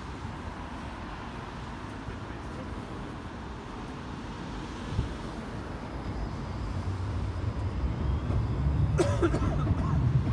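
Road traffic rumbling steadily, growing louder over the last few seconds, with a brief sharp sound about nine seconds in.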